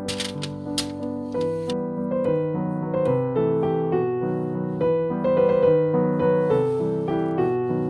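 Piano music playing, with a few sharp clicks during the first second and a half.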